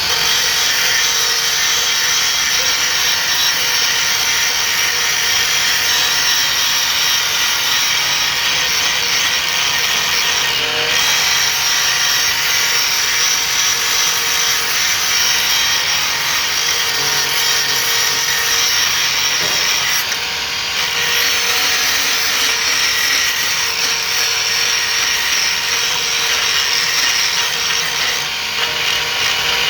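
Power grinder grinding a blade: a loud, steady, harsh grinding whine with a bright hiss, easing off briefly about 11 s and again about 20 s in.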